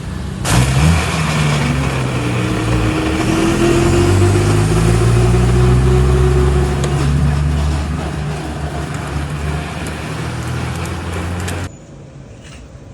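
A motor vehicle's engine running close by, its pitch rising about half a second in and holding steady for several seconds, then cutting off abruptly near the end.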